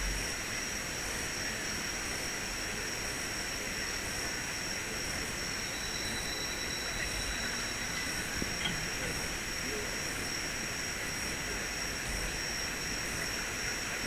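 Steady rushing, hiss-like noise of falling water from the light-and-mist waterfall display, with a thin, steady high-pitched whine above it.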